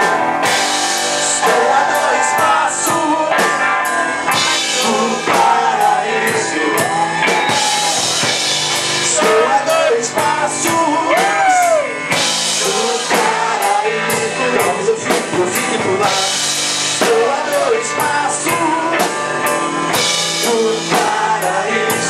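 Rock band playing at full volume, with a steady drum-kit beat under guitars and a gliding melodic lead line.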